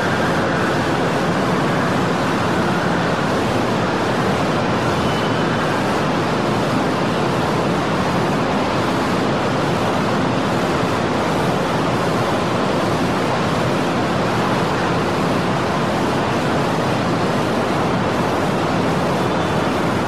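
Steady mining-site machinery ambience: a dense, even rumble and hiss with no single event standing out.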